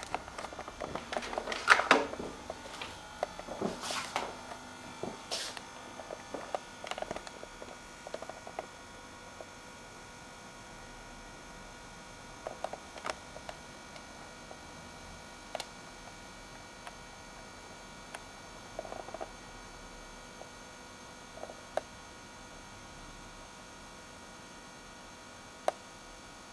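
Knocks and clicks of the camera being handled and moved for the first several seconds, then a steady faint electrical hum with a few isolated clicks.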